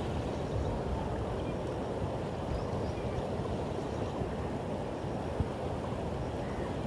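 Steady rushing of a fast-flowing river, a low, even wash of water noise.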